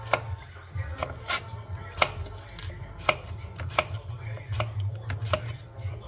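Chef's knife dicing courgette on a plastic cutting board: sharp knocks of the blade striking the board at an uneven pace of about one or two a second.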